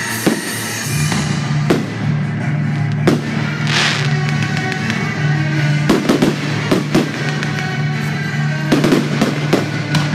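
Aerial firework shells bursting: several sharp bangs at irregular intervals, a few in quick succession, with a hissing burst about four seconds in. Music plays steadily underneath.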